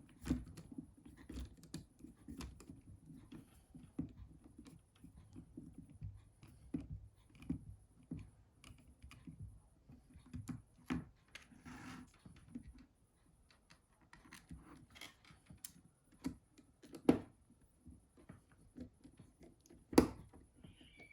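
Small scattered clicks and ticks of a precision screwdriver driving screws into a Nokia 6600's housing and of its plastic parts being handled, with two sharper clicks near the end.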